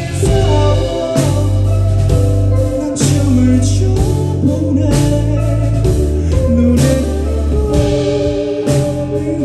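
Live band music: a male singer singing into a microphone over sustained keyboard chords, a steady bass and drum and cymbal hits about once a second, picked up in the hall.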